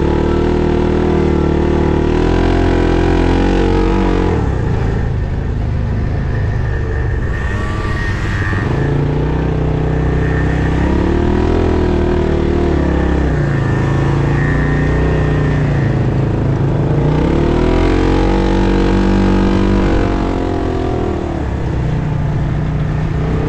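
Arctic Cat Wildcat 1000X side-by-side's engine running hard, revving up and easing off again and again as the throttle is worked, its pitch climbing and falling several times.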